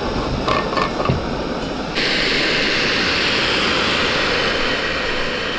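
Jetboil canister stove burner running at full flame, a steady rushing hiss as it heats water to the boil. A few light clicks in the first two seconds; about two seconds in the hiss jumps louder and brighter and holds steady.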